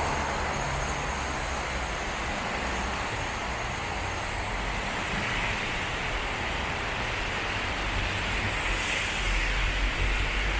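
Road traffic on a rain-wet road: a steady hiss of tyres and spray with the low rumble of passing vehicles, which swells near the end.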